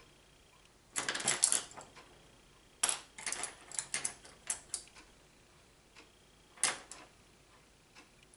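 Small hard items clattering and clicking as someone rummages through makeup things for a brush, in three bursts: about a second in, from about three to five seconds in, and once more near the end.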